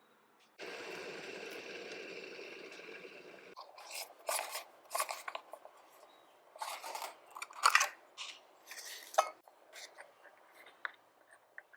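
A steady rushing noise for about three seconds, then a run of short, irregular scraping and clattering sounds of something being handled or cut.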